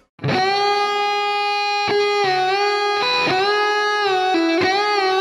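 Electric guitar lead note held with long sustain and bent up a whole step and released several times. It comes in just after a brief silence at the start.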